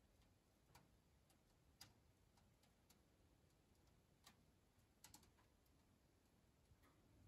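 A few faint, separate clicks over near silence: the flame-failure safety valves of a gas hob snapping shut as the burners' thermocouples cool after the gas is turned off.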